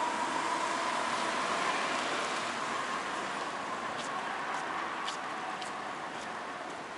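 Road traffic on a city street: cars passing with a steady tyre and engine noise that slowly fades. A few light clicks come over the second half.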